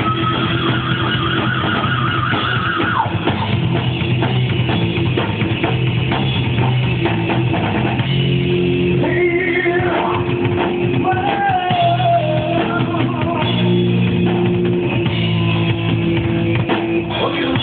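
Rock band playing live: a drum kit and electric guitar, loud and continuous.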